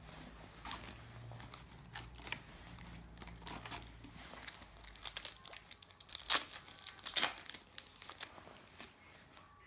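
A trading card pack wrapper being torn open and crinkled by hand, in irregular crackling rustles with the sharpest crackles around the middle.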